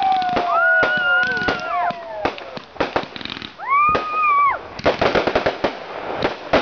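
Fireworks display: rapid bangs and crackling bursts, with several whistles gliding up, holding and dropping over them; one clear whistle comes about three and a half seconds in.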